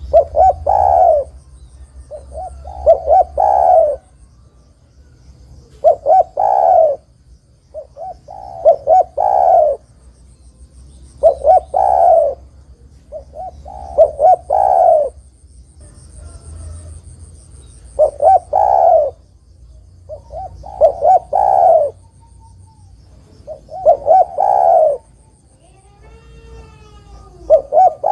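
Spotted dove (derkuku/tekukur) cooing its call over and over, each phrase a few short notes ending in a longer coo, repeated about every two to three seconds. Faint high chirping can be heard behind it.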